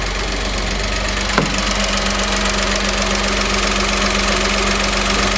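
Honda Vamos engine idling steadily with its rebuilt replacement air-conditioning compressor running, free of the meowing noise the old compressor made when its magnetic clutch disengaged. A single short click about a second and a half in.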